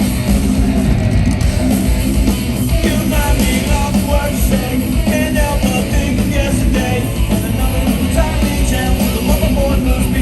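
Loud live rock music from a band, with some singing over it.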